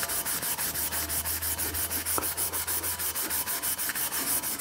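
Scotch-Brite pad scrubbed by hand over the bare steel tube of a Currie 9-inch rear axle housing, in quick, even back-and-forth strokes, several a second. The pad is scuffing through the surface layer of the raw steel to prepare it for paint.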